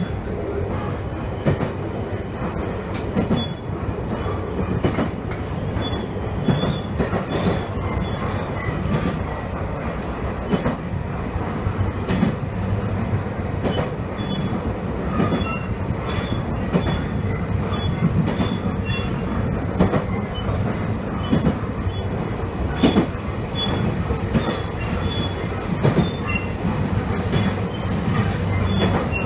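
Two-car local electric train running along the line: a steady rumble of wheels on rail with scattered rail clicks, and short faint high squeals from the wheels here and there.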